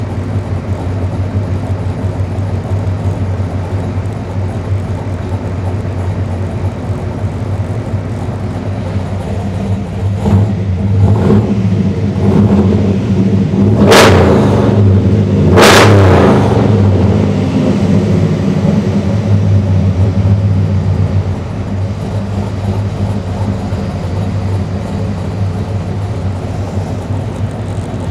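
Chevrolet K10 pickup engine, running on freshly installed Holley Terminator X Stealth throttle-body fuel injection, idling steadily, heard from inside the cab. About ten seconds in the revs rise a few times, and two sharp, loud cracks stand out near the middle.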